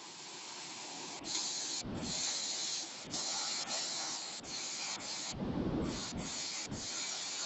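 Waterfall's rushing water, a steady hiss, with a couple of brief low rumbles partway through.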